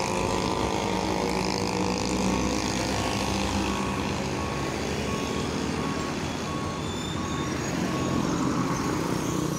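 Truck engine running steadily as the truck is manoeuvred, with its reversing alarm giving a repeated short beep.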